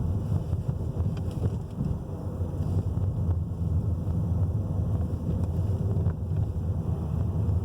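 Steady low rumble of a 2017 Skoda Superb heard from inside the cabin, with a few faint clicks scattered through it.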